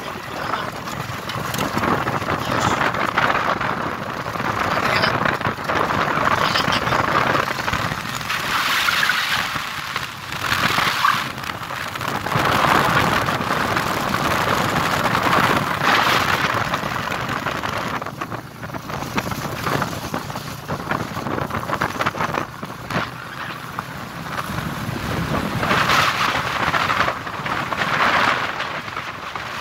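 Steady rushing noise of a motorcycle ride on a gravel road: wind on the microphone mixed with the engine and tyres on gravel, swelling and dipping in level.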